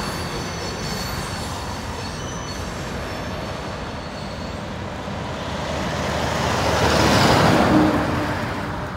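Freight train of tank cars rolling over a steel girder bridge, a steady rumble of wheels with a faint high squeal in the first half. From about five seconds in, a truck on the road passes close by, swelling to the loudest point and fading away.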